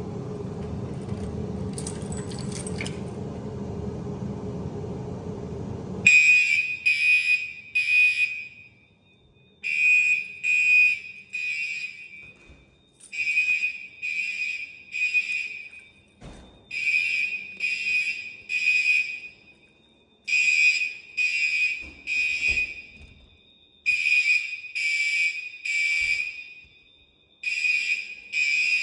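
A steady low hum, then about six seconds in a fire alarm horn starts sounding a loud tone in groups of three short blasts with a pause between groups, repeating about every four seconds: the temporal-3 evacuation signal.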